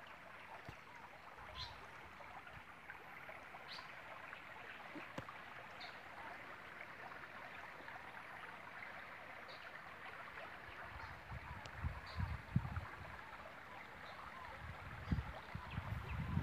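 Faint, steady rush of rainwater, with a faint high chirp every second or two and a few low thumps in the last five seconds.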